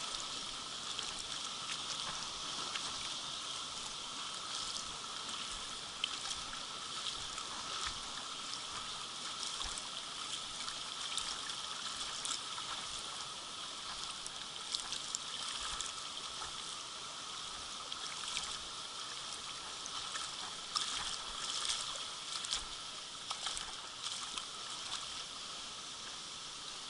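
Shallow stream flowing steadily over stones, with scattered small splashes and clicks that cluster about three-quarters of the way through.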